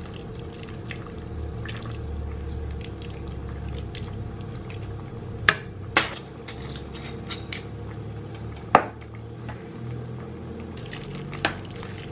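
A metal spoon stirring meatballs and noodles in sauce in a large metal pot, with about four sharp clinks of metal on the pot, the loudest a little past the middle, over a steady low hum.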